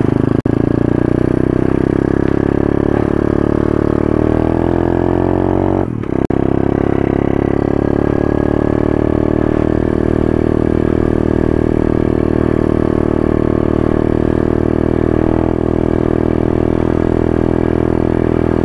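Small dirt bike's engine running under way, its pitch rising as it speeds up, dipping briefly about six seconds in, then climbing again and holding steady.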